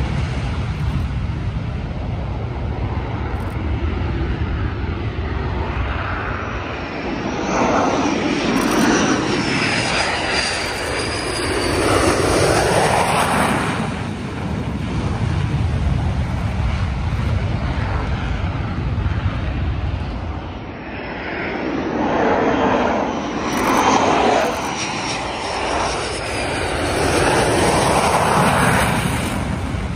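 Boeing EA-18G Growler jets on low approach for field carrier landing practice, their twin General Electric F414 turbofans running loud. Twice the jet noise builds to a peak as an aircraft passes close, with a high whine that dips in pitch.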